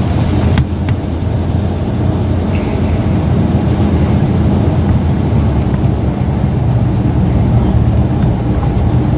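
1984 Chevy K20 pickup's carbureted engine running steadily under way, with road noise, heard from inside the cab.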